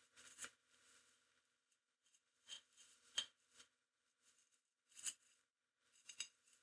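Faint scraping and a handful of light metallic clicks as the rusty comb and cutter blades of a Stewart Clipmaster clipper head are slid apart and handled. The sharpest click comes about three seconds in.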